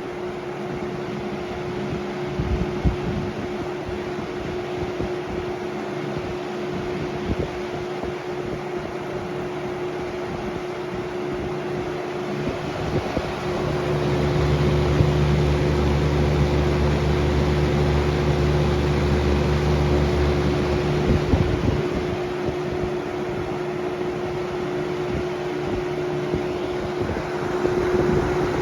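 Lakewood model 200 box fan with a Macmillan motor running on high speed: a steady motor hum over the rush of air. In the middle a low rumble swells for about eight seconds, then drops back. The motor is stiff and due for cleaning and oiling, though the fan runs without shaking.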